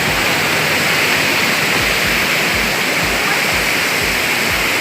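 Waterfall rushing, a loud, steady wash of falling water.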